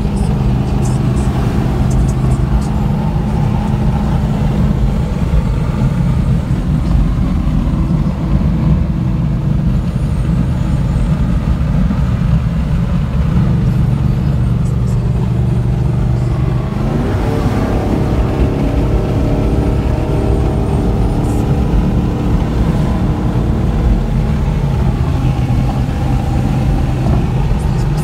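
Car engine and road noise heard from inside a moving car: a steady low drone, then about two-thirds of the way through the engine revs up hard, its pitch climbing and holding higher for several seconds before settling back down near the end.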